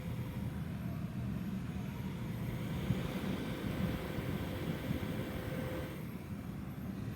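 Split air conditioner outdoor unit running: a steady low hum with a faint constant whine above it, and some added hiss for a few seconds in the middle.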